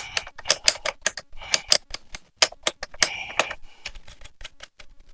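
Rapid ratcheting clicks, several a second, with a short break about two seconds in and fewer clicks near the end.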